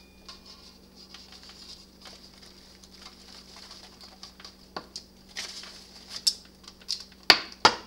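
Paper flour bag crinkling and light scrapes and taps in a stainless steel mixing bowl as flour is measured out by the cup. A few sharp clicks come near the end.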